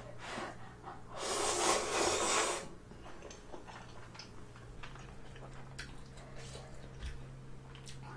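A long, loud slurp of spicy squid-jjamppong instant ramen noodles, about a second in and lasting about a second and a half. After it come only faint small clicks and chewing.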